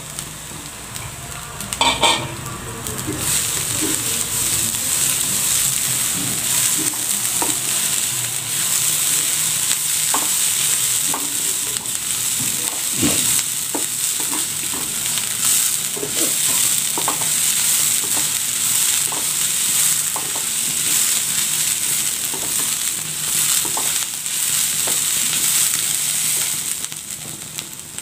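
Ground coconut and chilli paste frying in oil in a kadai, sizzling steadily while a spatula stirs and scrapes it, with scattered taps of the spatula on the pan. A loud knock comes about two seconds in, and the sizzle swells just after it.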